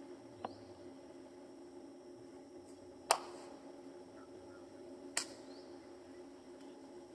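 Three sharp clicks over a steady low background hum. The second click, about three seconds in, is the loudest, and the last comes about two seconds after it.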